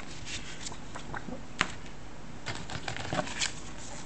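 Paper booklets and a cardboard kit box being handled: scattered soft rustles and light clicks, with one sharp tick about a second and a half in and a busier patch of rustling in the second half.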